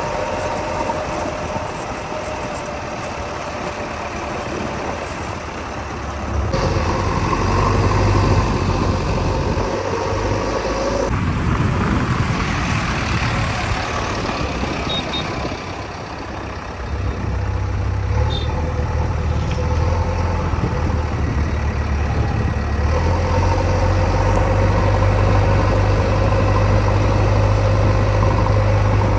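Diesel engines of a backhoe loader and tractor running at work. The engine note shifts abruptly in pitch and level a few times.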